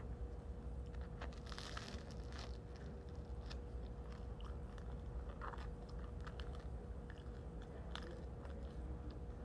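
A person biting into a loaf of bread and chewing it: a crackling crunch of the crust about a second and a half in, then scattered small crunches and mouth clicks as she chews. A steady low hum runs underneath.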